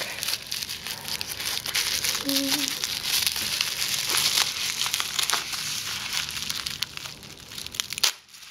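Plastic bubble wrap crinkling and rustling as wrapped jars and bottles are handled and lifted, with many small crackles. It dies away near the end.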